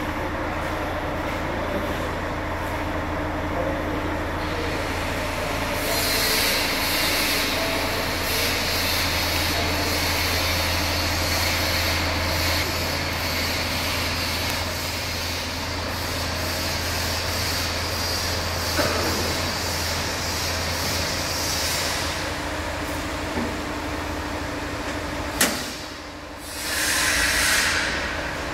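Steady machine noise, a low hum with hiss over it that grows louder for a stretch and then eases. Near the end comes a sharp click, then a brief whoosh.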